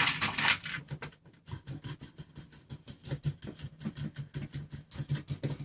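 Quick, light metallic clicking, several clicks a second: a nut being spun by hand along a threaded rod.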